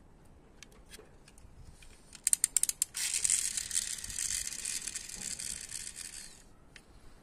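Toy car's pull-back spring motor: a quick run of sharp ratcheting clicks, then a loud, steady, high whirr for about three and a half seconds as the spring unwinds and spins the wheels. A few light plastic clicks come before it.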